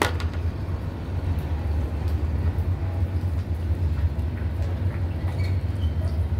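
A steady low rumble, like a motor running close by, with a sharp click at the very start.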